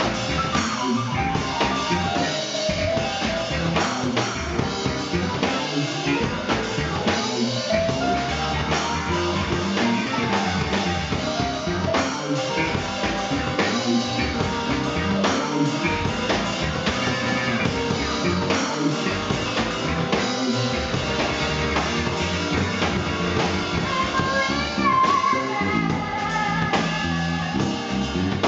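Live soul band playing: drum kit, electric bass guitar and electric keyboard.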